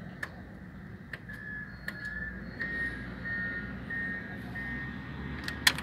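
Mechanical combination lock being worked by hand: a few scattered clicks, then a louder pair of sharp clicks near the end as the mechanism is operated.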